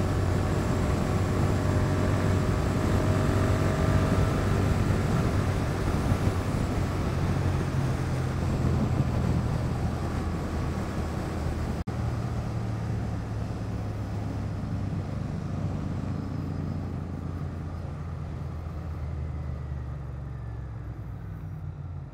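Royal Enfield Continental GT 650's parallel-twin engine running at high cruising speed amid heavy wind rush. About halfway through, the engine note and wind fall away steadily as the bike slows down.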